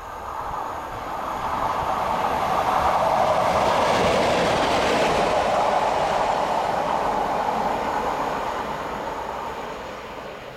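A Class 37 diesel-electric locomotive running light, with no train behind it, passes by, its English Electric V12 diesel engine working. It grows louder, is loudest about halfway through, then fades as it draws away.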